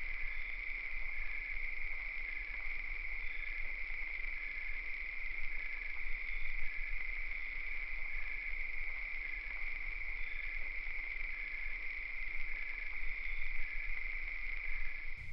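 Night insect chorus: a steady, unbroken high trill, with short, slightly lower chirps repeating every second or so.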